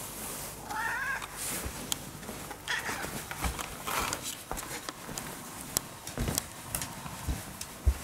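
Orange-and-white domestic cat meowing in begging calls: one clear wavering meow about a second in, then fainter ones around three and four seconds in, with a few soft thumps between.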